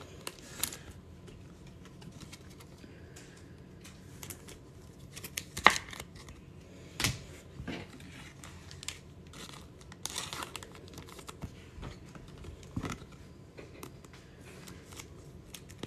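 Trading cards and clear plastic card holders being handled: soft rustling with scattered sharp clicks and taps as a card is picked up and slid into a clear plastic sleeve.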